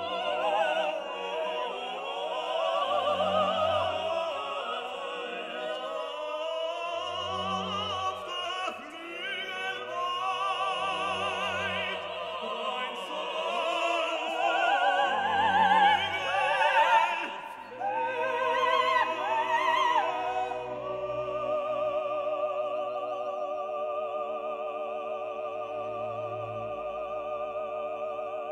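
Background music: operatic singing with vibrato over orchestral accompaniment, with a low pulse about every two and a half seconds. From about twenty seconds in it settles into long held chords.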